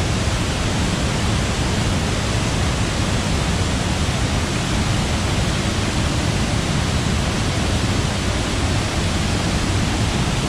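Waterfall pouring hard into a deep plunge: a loud, steady rush of water.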